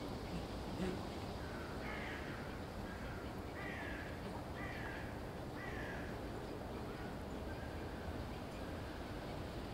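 A series of short animal calls, each falling in pitch, about one a second. They are strongest in the middle and trail off into a few fainter calls near the end, over a steady background hiss.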